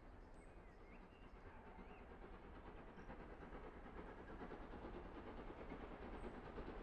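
A heritage steam train approaching, faint at first and growing steadily louder. A bird chirps a few times in the first half.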